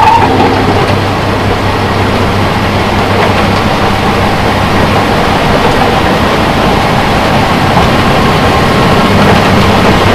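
Tractor-mounted snow blower running steadily under load, its engine droning low and the blower churning snow and throwing it up the chute into a truck's container.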